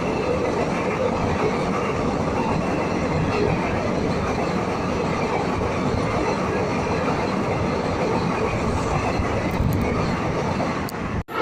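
A train passing at high speed close by: a steady, loud rush of wheels on rails and carriages going by, cut off briefly for a moment near the end.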